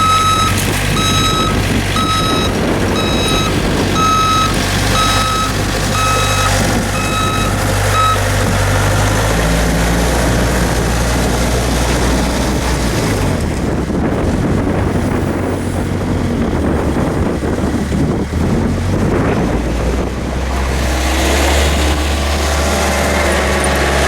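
An electronic vehicle warning beeper sounding a steady run of short beeps, about one and a half a second, that stops about eight seconds in, over the low hum of a vehicle engine running.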